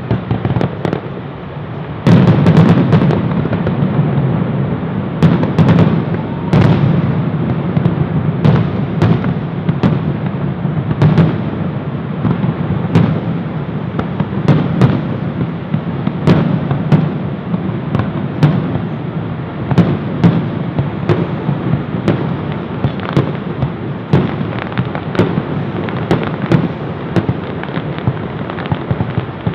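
Fireworks display: a continuous, rapid barrage of aerial shell bursts with sharp cracks over a heavy low rumble, growing suddenly denser and louder about two seconds in.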